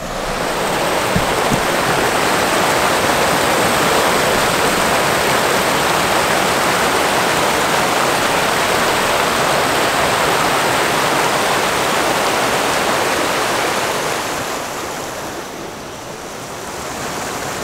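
Creek water rushing over a small rocky cascade: a steady, loud hiss of white water that grows quieter near the end.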